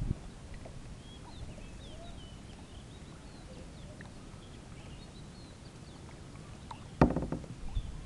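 Birds chirping and whistling in many short calls over a low rumble of wind, with one loud knock about seven seconds in.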